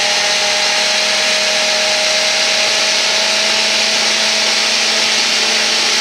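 Electric mini chopper running steadily, its motor whining at a constant pitch as the blades churn a thin liquid marinade in the plastic bowl.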